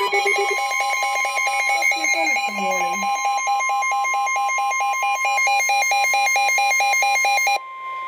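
Weather alert radios sounding their warning alarm: a rapid beeping at about four beeps a second over a steady high alert tone, signalling a severe thunderstorm warning. Near the end the beeping cuts off suddenly and the steady tone carries on.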